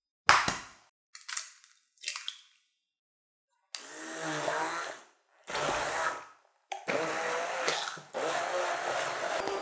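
An egg cracks once sharply, followed by two softer crackles as the shell is pulled open. Then an immersion hand blender runs in three short pulses and then steadily near the end, puréeing banana, yogurt and egg in a glass bowl.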